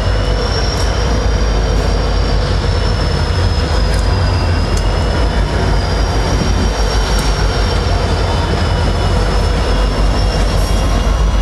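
Diesel train running, a strong low rumble with steady high-pitched wheel squeal wavering slightly in pitch, and a few faint clicks from wheels and cars.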